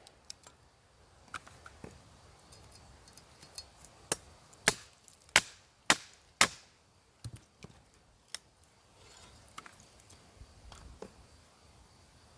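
Batoning a 2.5 mm thick machete through a branch about two inches thick: sharp wooden knocks as the blade's spine is struck. About four seconds in comes a quick run of five loud strikes, with lighter taps before and after.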